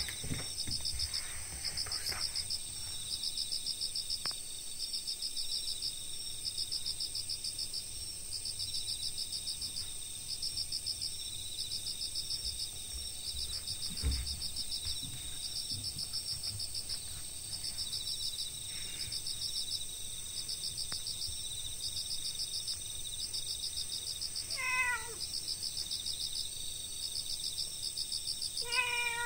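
Crickets and other night insects chirping steadily, a high continuous trill with repeating pulsed chirp trains. A house cat meows once about 25 s in and again near the end, each meow falling in pitch. A soft thump comes about halfway through.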